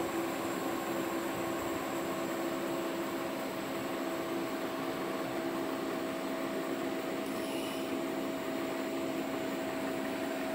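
Axxair SAXX-200 water-cooled orbital TIG welding set running through a weld: a steady machine hum with hiss over it, unchanging throughout.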